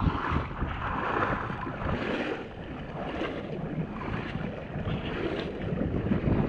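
Wind buffeting the microphone over the wash of sea water, irregular and noisy with no steady engine note.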